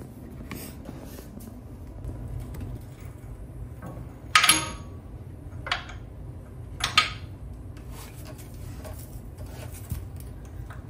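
Metal hand tools clinking against metal as a small bracket bolt is worked off: three sharp clinks with a short ring over about three seconds, the first the loudest, with faint lighter ticks between.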